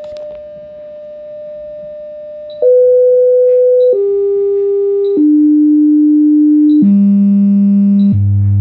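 Vizio sound bar's speakers playing a steady sine test tone from a bench function generator, testing the bar after its faulty inductor was replaced. The pitch steps down about every second and a half, from roughly 600 Hz through 500, 400, 300 and 200 Hz to about 100 Hz near the end, with a short high blip at each step. The tone gets louder from the second step on.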